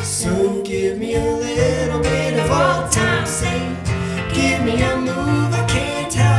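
Live folk-pop song: strummed acoustic guitar and electric keyboard accompanying sung vocals.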